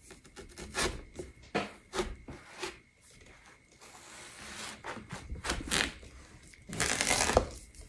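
A large kitchen knife cutting into a whole watermelon: irregular crunches and cracks as the blade saws through the rind, with a longer, louder tearing crunch near the end.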